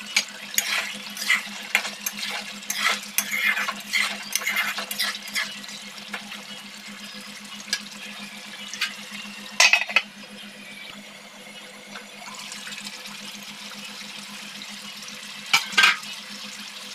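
Metal spatula stirring and scraping in a metal pan of simmering meat curry, over a low sizzle of the sauce. Quick scraping strokes come in a flurry for the first few seconds, then two louder scrapes about ten seconds in and near the end, with a steady low hum underneath.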